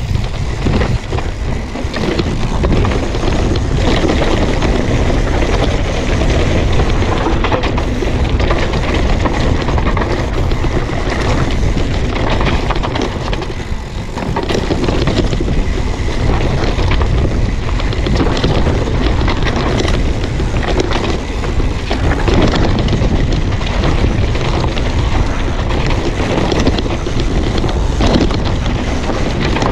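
Mountain bike riding fast down a dry dirt trail: wind rushing over the camera's microphone, mixed with tyres rolling on dirt and the bike rattling over bumps, easing briefly about fourteen seconds in.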